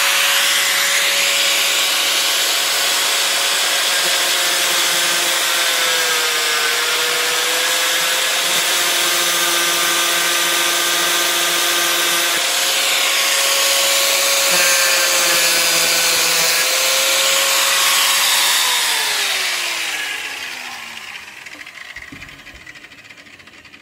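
Angle grinder running at full speed, cutting through the tips of steel roofing nails that poke through the roof sheathing; its pitch sags slightly under load a couple of times. Near the end it is switched off and spins down with a falling whine.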